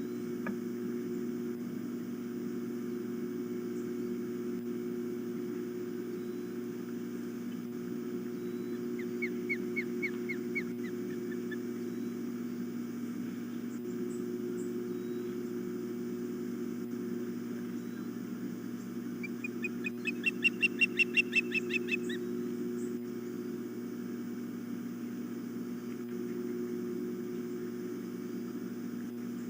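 Osprey calling in two runs of rapid, evenly repeated high chirps: a short, fainter series about nine seconds in, then a longer, louder series about twenty seconds in. A steady low hum lies under everything.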